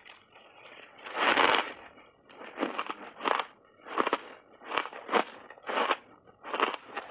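A mouthful of pink berry blended shaved ice being chewed: a longer, louder crunch about a second in, then short, sharp crunches repeating about every two-thirds of a second as the ice is crushed between the teeth.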